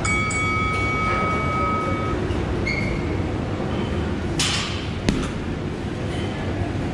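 A round-timer beep rings steadily for about two seconds, marking the start of a boxing round, with a shorter beep a moment later. About five seconds in, a boxing glove strikes the heavy bag once with a sharp smack, just after a brief rushing noise, over a steady background hum of gym ventilation.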